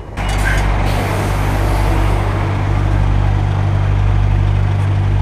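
Scania truck's diesel engine idling close by: a steady deep hum that cuts in abruptly at the start.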